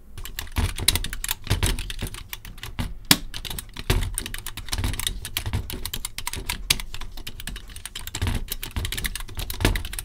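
Fast typing on a Smith-Corona keyboard with leaf-spring switches: a dense, uneven stream of keystrokes. The long, slender leaf springs at the back of the switches give them a very strange tinny noise.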